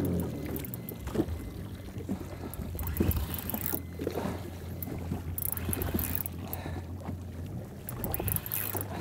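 Yamaha FX HO WaveRunner jet ski engine idling with a steady low hum, with gusts of wind buffeting the microphone.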